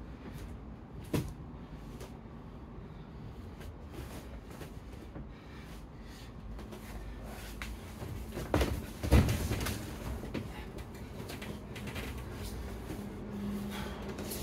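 Two grapplers scuffling and thumping on folding foam gym mats during no-gi jiu-jitsu sparring, with a sharp knock about a second in and a cluster of loud thuds past the middle as a body goes down onto the mat.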